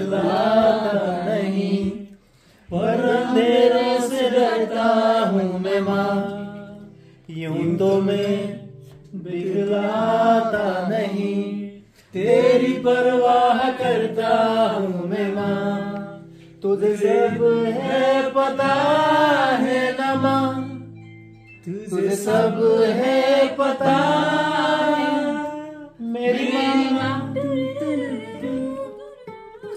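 People singing a song together in phrases of a few seconds with short breaths between, over held low notes from an acoustic guitar.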